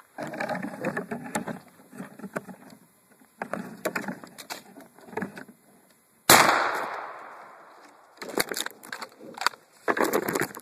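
Rustling handling noise, then a single shotgun blast about six seconds in, the loudest sound, with its echo fading over a second or two. More rustling follows near the end.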